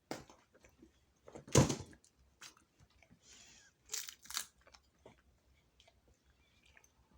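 Dried seaweed being bitten and chewed: a few separate crisp crunches with quiet gaps between, the loudest about one and a half seconds in and a quick pair about four seconds in.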